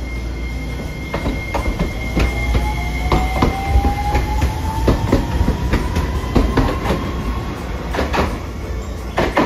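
Hiroden Green Mover Max low-floor tram passing close: its motors give a whine that rises slowly in pitch as it picks up speed. Under the whine are a steady rumble and a series of sharp clacks from the wheels running over the rails.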